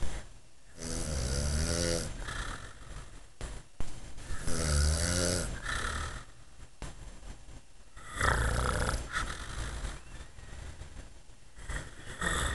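A man snoring in his sleep: three long snores about three and a half seconds apart, the first two with a wavering rattle.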